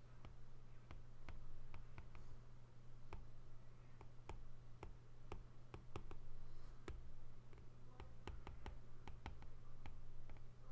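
Stylus tip tapping and clicking on a tablet's glass screen during handwriting: a run of light, irregular clicks, a few a second, over a steady low hum.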